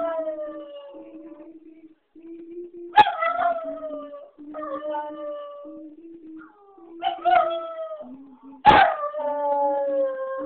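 Young Jack Russell terrier howling: a series of drawn-out howls, each breaking in sharply and sliding down in pitch, over a lower steady tone in short broken stretches.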